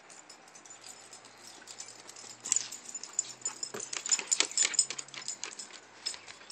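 Close rustling and crackling of yew branches, a quick run of sharp snaps and scratches that builds about two seconds in and thins out near the end.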